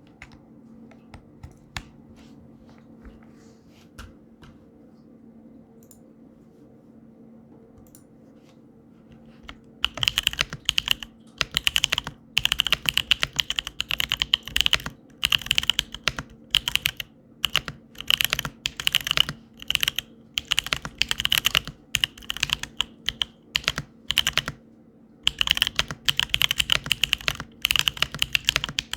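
Typing on a custom mechanical keyboard with lubed, film-gasketed C3 Kiwi tactile switches on a POM plate in an acrylic case. For the first ten seconds there are only a few faint clicks over a low steady hum. Then fast typing starts in bursts, with a short pause about three-quarters of the way through.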